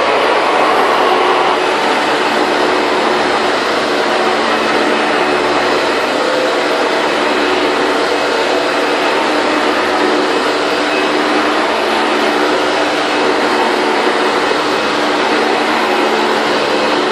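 Late-1990s Hoover Bagless upright vacuum cleaner with twin-chamber bin running steadily while vacuuming carpet: a loud, even motor whine with air rush.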